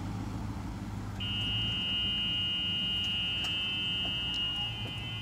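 A golf cart's reverse warning buzzer comes on about a second in and sounds as one steady high tone, with no break.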